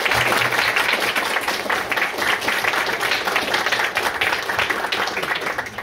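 Audience applauding: many hands clapping together in a dense patter, dying away near the end.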